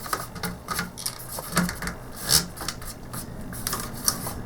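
The plastic bottom half of a ZX Spectrum +2A case being cleaned and handled, with irregular clicks and scraping strokes.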